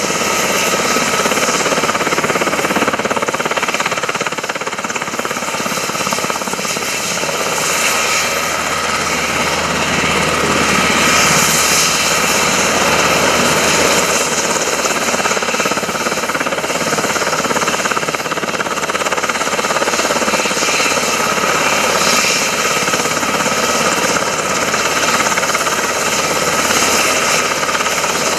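Sikorsky UH-60 Black Hawk running on the ground with its rotors turning: the steady whine of its twin T700 turboshaft engines, with several held tones, over the rush and beat of the spinning main and tail rotors.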